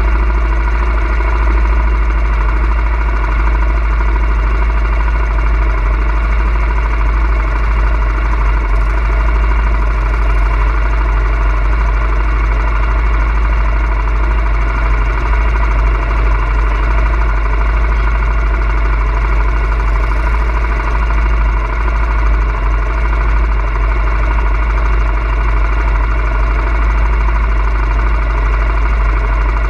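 ATV engine running at a steady speed with a deep, constant rumble underneath.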